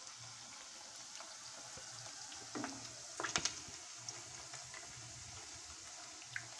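Chicken pakodi pieces deep-frying in hot oil in a kadai, a faint steady sizzle. A spatula scrapes and knocks against the pan twice around the middle.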